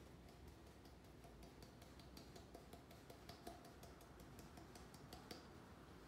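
Ground coffee poured from a glass jar into the glass carafe of a Belgian syphon coffee maker: faint, irregular ticking and clinking of glass.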